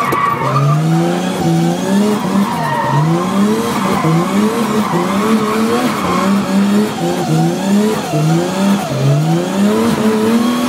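Nissan Skyline drift car's engine, heard from inside the cabin, revving hard and falling back again and again as it is driven sideways, each climb in pitch lasting about a second, with the tyres screeching throughout.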